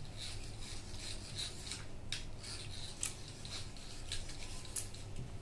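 Handling noise as a plastic pipe clip is worked onto a small DC motor: light rubbing and scraping, with a few sharp clicks.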